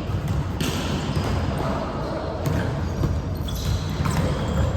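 Volleyball play in a gym: a few sharp ball impacts over a steady low hubbub of the hall.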